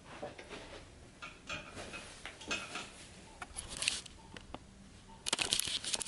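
Scattered rustling and clicking from a camera or phone being handled, which grows into a louder, dense run of clicks and scrapes about five seconds in.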